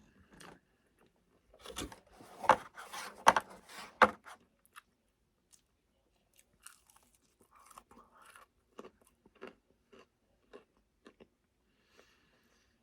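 Close-up chewing and crunching on crispy fried chicken: a run of loud crunches a couple of seconds in, then softer, scattered chewing.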